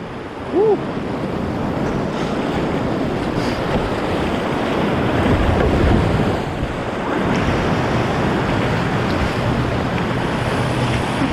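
Whitewater rapids rushing steadily around a kayak, with wind buffeting the action-camera microphone. A brief rising-and-falling squeak cuts through just under a second in.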